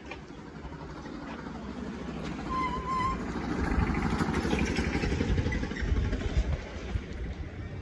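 Engine of a small motorised goods cart running as it passes close by, growing louder over the first few seconds and loudest just past the middle. A brief warbling high tone sounds about two and a half seconds in.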